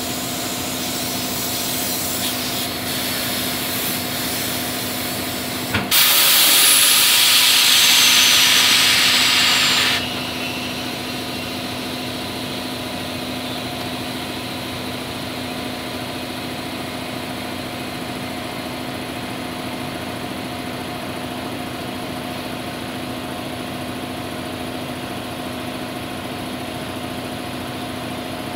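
Compressed air hissing loudly for about four seconds into a tyre on a Coats tyre changer, inflating it on the rim. The hiss starts with a short knock about six seconds in and cuts off suddenly. A steady mechanical hum runs underneath throughout.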